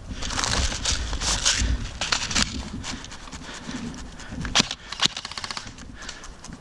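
Airsoft guns firing and clicking: scattered sharp snaps, with a quick rapid-fire run of clicks about five seconds in. Low rumbling noise on the microphone in the first half.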